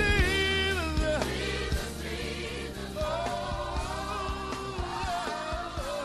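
Gospel music: voices singing a melody with vibrato over bass and drums.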